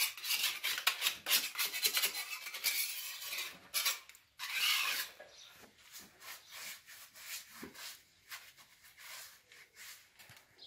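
A paintbrush stroking enamel onto a bare steel angle over a window, the bristles scratching quickly back and forth on the metal. The strokes are loudest in the first few seconds, then softer.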